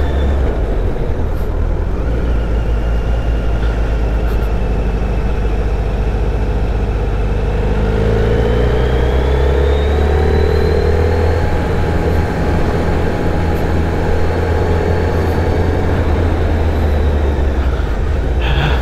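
Motorcycle engine running while riding downhill through hairpin bends, its pitch rising and falling with the throttle over a steady low rumble.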